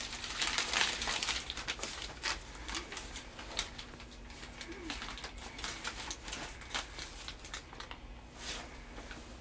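Plastic packaging crinkling and rustling as it is handled, a dense run of small crackles that thins out after about four seconds.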